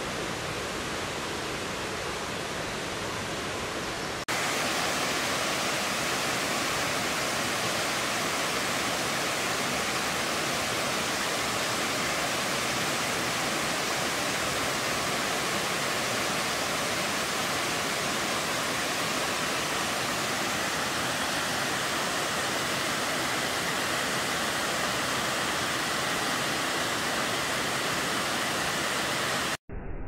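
Waterfall rushing steadily. About four seconds in the sound cuts to a louder, hissier stretch of falling water, and just before the end it drops out for a moment.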